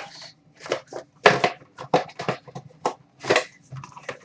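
Trading cards and their packaging being handled as a box-break book is opened: a quick run of short clicks, taps and rustles.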